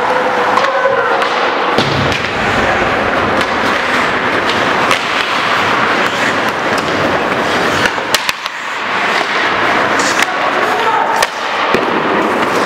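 Ice hockey play on the rink: skate blades scraping and carving the ice, with several sharp clacks of sticks and puck and thuds against the boards, a cluster of them about eight seconds in.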